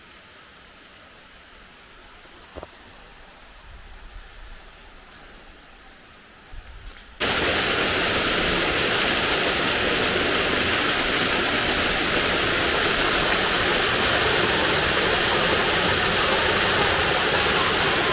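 Faint steady hiss of distant water, then about seven seconds in a sudden switch to loud, steady rushing of water cascading down the stepped concrete channel of a levada.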